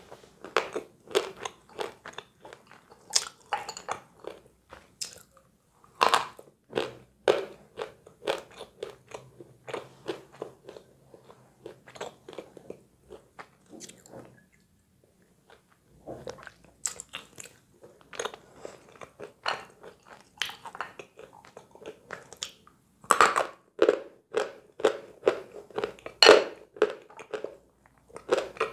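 Edible chalk being bitten and chewed close to the microphone: a dense run of crisp crunches, with a pause of about two seconds halfway through.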